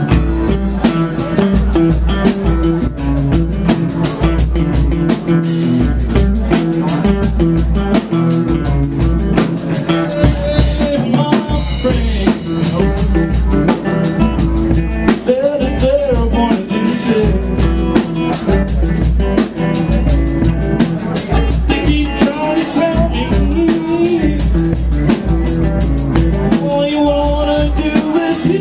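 Live blues-rock band playing: a drum kit keeps a steady beat with a pulsing kick drum and snare, under electric guitars.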